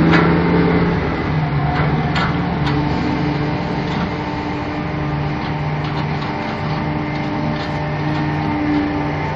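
Heavy mining machinery's large diesel engines running steadily, with a few short knocks in the first three seconds.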